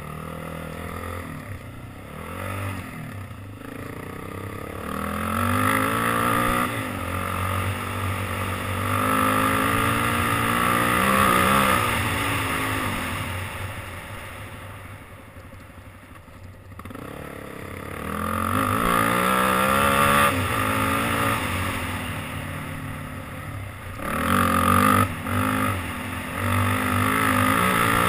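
ATV engine revving up and down as it is ridden along a dirt trail, its pitch climbing and dropping with each throttle change and shift. It eases off about halfway through, then accelerates hard again, with wind rushing over the helmet-mounted microphone.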